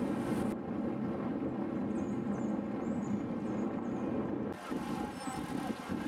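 Steady low rush of wind buffeting the microphone of a camera riding along on a moving road bike.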